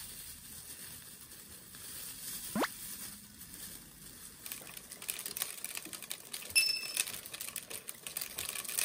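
Dry rice grains pouring through a funnel into a plastic PET bottle, a dense pattering of tiny ticks that starts about halfway in. Earlier there is one quick rising whistle-like glide, and near the end a brief two-tone ding.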